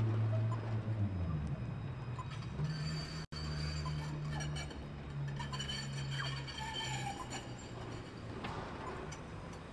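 Electric tram rolling slowly past over street track, with a steady low hum that drops in pitch about a second in and shifts again later. Faint high-pitched wheel squeal on the rails comes through in the middle. The sound cuts out completely for an instant about a third of the way through.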